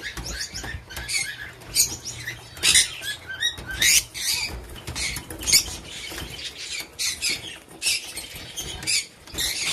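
Lutino peach-faced lovebirds chirping: a quick, uneven run of short, sharp, high-pitched chirps, a few every second.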